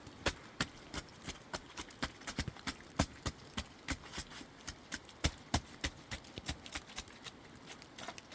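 Sharp, irregular knocks and taps, several a second, some louder than others.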